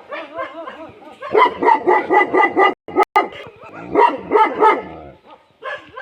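Bhotiya dogs barking repeatedly in quick runs of loud barks, broken by a short gap about three seconds in.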